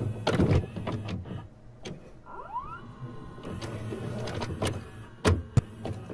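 VCR cassette mechanism loading a tape: a run of clicks and clunks, a small motor whirring up in pitch, a steady whir, then two sharp clunks near the end.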